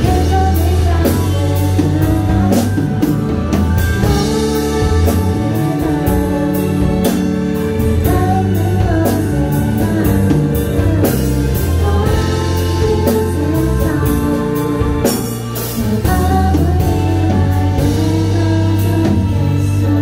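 Live band performance of a song: a female vocalist singing over keyboard accompaniment with a steady beat.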